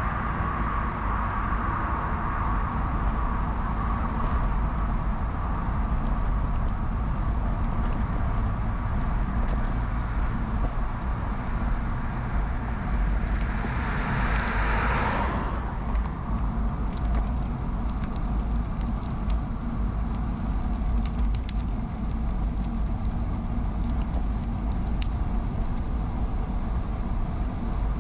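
Steady low rumble of wind on the action camera's microphone and bicycle tyres on the road while riding a vintage Peugeot UJ-10 ten-speed. About halfway through a car passes, its noise swelling and fading over about two seconds, and a few faint ticks follow.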